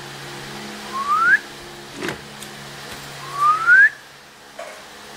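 A person whistling two short rising notes a couple of seconds apart, each gliding upward for about half a second, with a single click between them. A steady low hum runs underneath.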